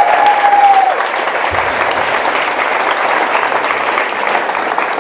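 Audience applauding steadily, with one person's brief high-pitched cheer in the first second.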